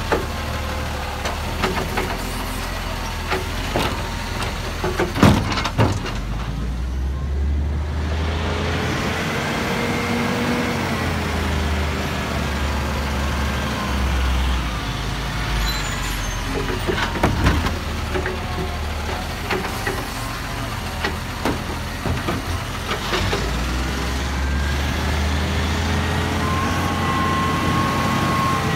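Side-loading garbage truck running at the kerb, with knocks and clanks from its lifting arm and the wheelie bin in the first few seconds, then the engine's pitch rising and falling as it moves off, with more scattered knocks later.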